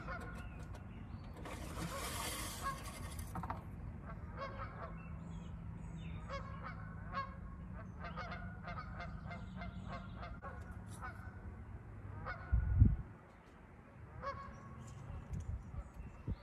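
Birds calling repeatedly in short, pitched calls over a steady low rumble, with one short, loud low thud about thirteen seconds in.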